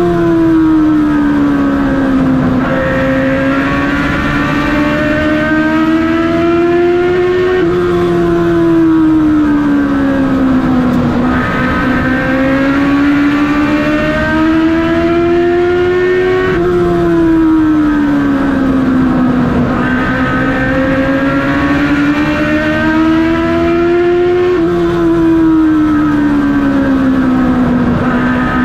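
Race car engine heard from inside the cockpit at racing speed, its pitch climbing as it accelerates and then dropping back as it lifts off, in a repeating cycle about every eight and a half seconds, once per lap of the short oval.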